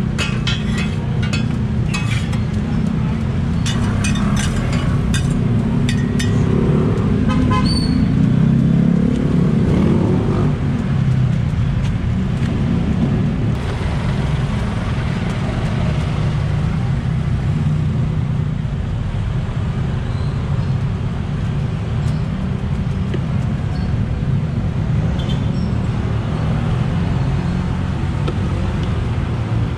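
Steady street traffic, mostly a low engine-and-tyre rumble, with a vehicle horn-like tone and a passing engine about eight to ten seconds in. A run of light clicks comes in the first six seconds.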